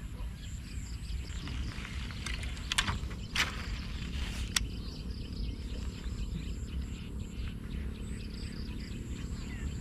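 Steady low rumble of outdoor background noise, with a few short, sharp clicks between about three and four and a half seconds in.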